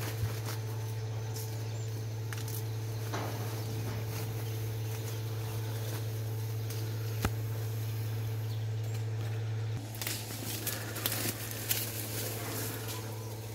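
A steady low hum with scattered faint clicks and rustles. The hum drops away about ten seconds in, and busier rustling and clicking follows.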